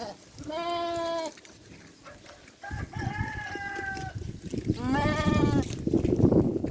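Sheep bleating: three drawn-out calls about a second apart, the middle one higher-pitched and slightly falling, followed near the end by a low, noisy shuffling.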